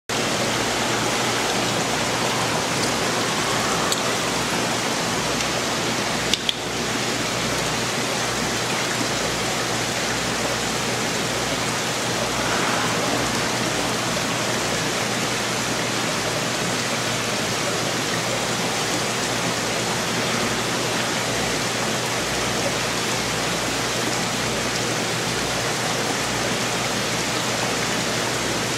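Steady rushing of water in a fish-shop aquarium, its circulation and aeration running, with a low hum underneath and one brief click about six seconds in.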